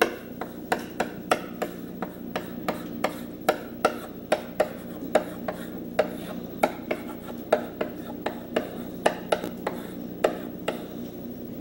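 Chalk clicking against a blackboard as characters are written by hand: a quick, irregular series of sharp taps, about two or three a second, that stops shortly before the end, over a steady low hum.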